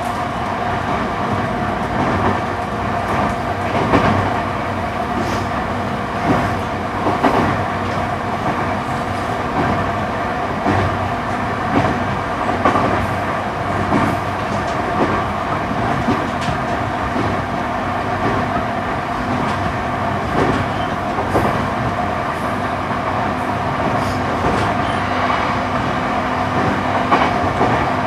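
Running noise inside a JR East E235-series electric train's motor car at speed: a steady hum from the running gear, with the wheels clicking over rail joints every second or two.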